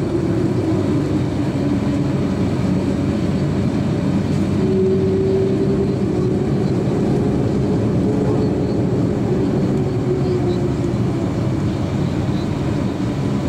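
Steady low cabin rumble inside an Airbus A350-900, with a faint hum that drifts slightly in pitch.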